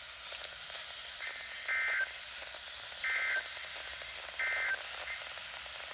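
NOAA Weather Radio heard through a receiver's hiss. Three short bursts of the EAS/SAME digital header, a warbling data tone, come about 1.4 s apart, announcing an incoming alert.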